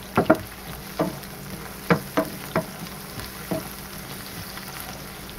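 Chopped red onions sizzling in oil in a GreenLife ceramic nonstick frying pan as they are sautéed toward translucent. A wooden spatula stirs them, knocking against the pan about seven times.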